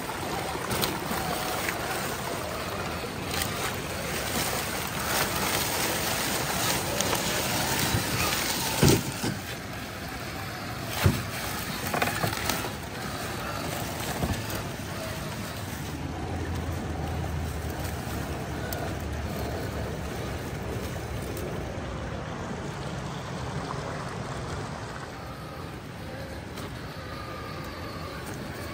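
Axial SCX6 RC crawler truck climbing over creekside boulders, heard over the steady rush of running creek water. A few sharp knocks partway through are its tyres and chassis striking rock.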